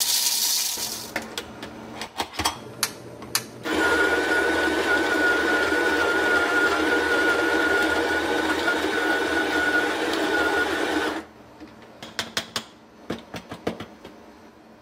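Coffee beans poured rattling into a plastic hopper, then a conical burr coffee grinder's motor running steadily for about seven seconds, grinding beans with a steady high whine, and stopping abruptly. After it, a short run of light clicks and taps, as of an espresso tamper working in a metal portafilter.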